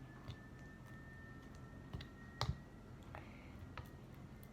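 A few light clicks and taps, about five spread out, the loudest about two and a half seconds in, from handling a cup and stirring utensil while mixing slime. A faint steady high tone runs underneath.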